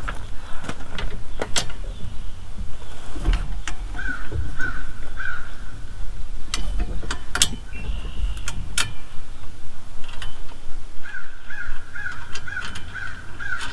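A crow cawing, three calls about four seconds in and then a steady run of calls near the end, over scattered sharp clinks of metal parts and tools as the wheel hoe's high arch is bolted together.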